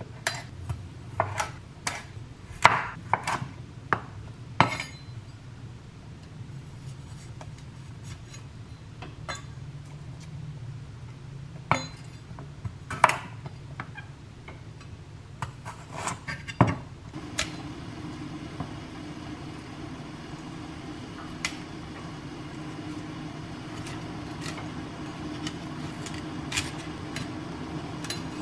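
Chef's knife cutting broccolini and broccoli on a bamboo cutting board: irregular sharp knocks of the blade on the wood, busiest in the first five seconds and again about twelve to seventeen seconds in. A low steady hum comes in about two-thirds of the way through.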